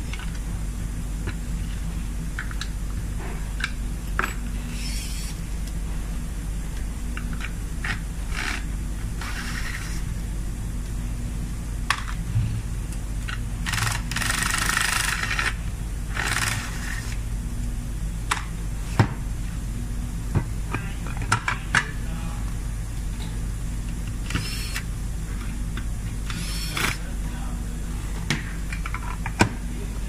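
Hand work on a metal cable-TV amplifier housing and its connectors: scattered sharp clicks and taps of metal parts and tools, with a few short scraping rushes and a longer one about halfway through, over a steady low hum.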